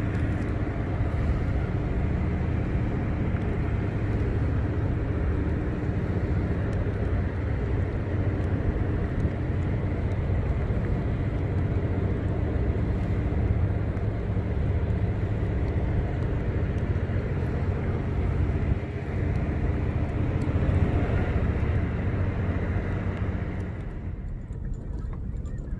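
Steady low machinery hum from a large offshore vessel's engines running, an even drone that lets up somewhat near the end.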